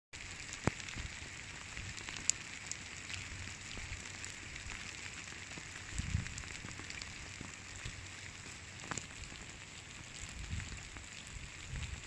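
Rain falling steadily, an even patter with scattered sharp drop ticks, and a few soft low thumps, the largest about halfway through.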